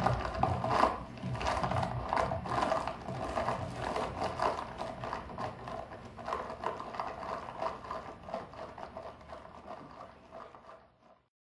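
Experimental soundtrack music made of dense clicking, scraping and rattling textures, fading out gradually and stopping about eleven seconds in.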